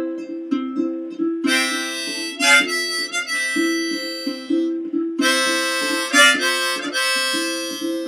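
Ukulele strummed in a steady rhythm, with two harmonica phrases played over it, the first about a second and a half in and the second about five seconds in.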